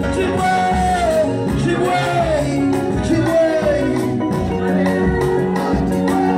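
Live church worship band playing: a lead singer's voice gliding over keyboard, bass and a steady, even beat.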